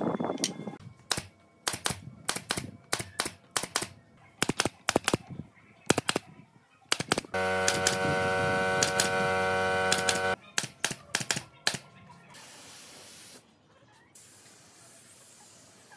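Woodworking shop sounds: an irregular run of sharp knocks and taps, then a steady machine hum that starts and stops abruptly and lasts about three seconds, then a few more knocks.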